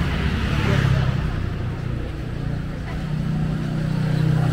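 Motor vehicle engines passing close by on a street, one loudest about a second in and another building near the end.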